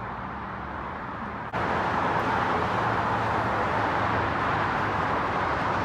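Steady road-traffic noise from passing cars, which jumps abruptly louder about a second and a half in and then holds steady.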